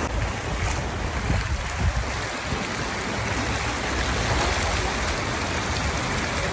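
Fast, shallow water rushing over a low concrete weir: a steady, even rush of flowing water.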